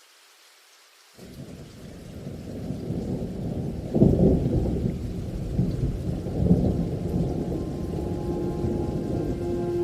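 Thunder rumbling with rain. It fades in about a second in, swells to its loudest about four seconds in, and keeps rumbling after.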